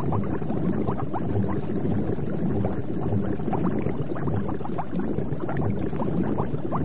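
Underwater ambience: many small air bubbles gurgling over a steady low rumble of water.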